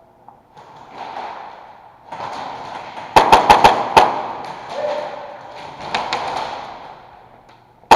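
Airsoft gun firing a rapid burst of about six sharp shots in under a second, about three seconds in.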